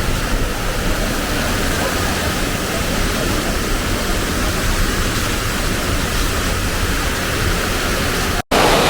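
Waterfall water rushing, a steady even roar, cut off to silence for an instant near the end.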